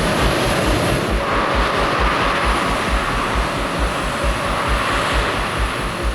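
Jet airliner engines in reverse thrust after touchdown: a loud, steady rush of jet noise with a whining band that builds about a second in and eases near the end.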